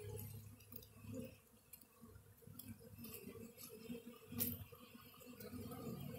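Faint, wavering hum of a honeybee swarm clustered on a branch, with a few small clicks and one sharp click about four and a half seconds in.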